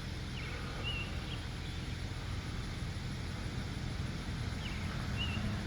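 Outdoor ambience: a steady low rumble with a few faint, short bird chirps, a cluster in the first second and a half and two more near the end.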